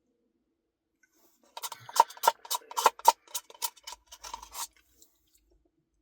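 Close-miked eating of an ice cream Blizzard: a quick run of a dozen or so sharp clicks and crunches over about three seconds, starting after a short silence and stopping before the end.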